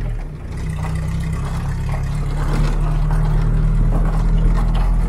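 A vehicle engine running steadily on the move, with road and wind noise. It dips briefly just after the start, then builds gradually.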